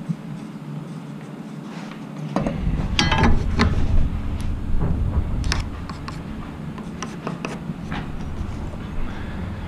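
Faint scratching of a marker along a wooden 2x4 plate. Then sharp clicks and knocks as a metal speed square and lumber are handled on the plates, over a low rumble that starts about two seconds in.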